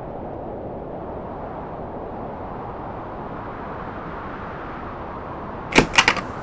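Steady low rumbling noise, then three loud sharp knocks in quick succession near the end.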